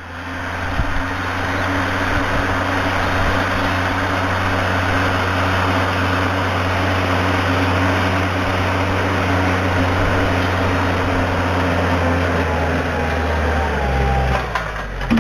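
A large engine running steadily under load at constant speed, slowing down in the last second or two.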